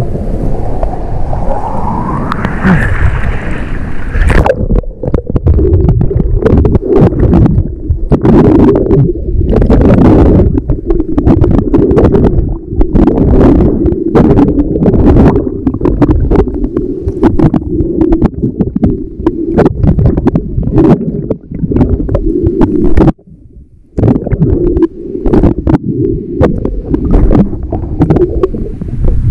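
Choppy surf water sloshing and rushing around a waterproof camera, muffled, with many knocks against the housing. A rising wash in the first few seconds, and a sudden short drop-out about three-quarters of the way through.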